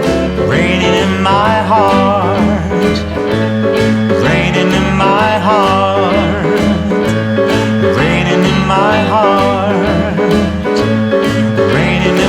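Rock and roll band playing a slow ballad: a wavering lead melody line in recurring phrases over guitar, bass and a steady beat.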